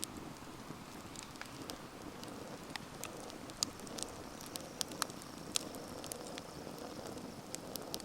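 Wood campfire burning, with a steady low hiss and irregular sharp crackles and pops of burning wood, several louder pops around the middle.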